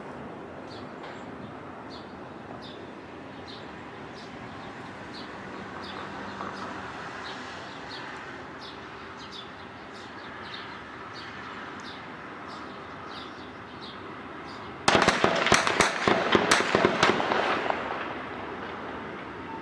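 Gunfire: scattered faint shots crackle for about fifteen seconds, then a loud burst of rapid shots lasts about three seconds and fades out.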